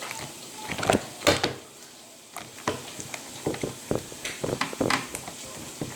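Hands stretching and squishing white slime with beads in it, making irregular sticky pops and clicks, with two louder pops about a second in and a run of small ones later.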